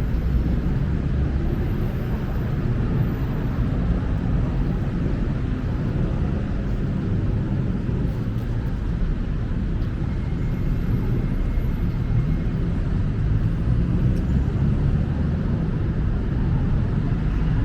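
Street ambience with a steady low rumble of passing road traffic.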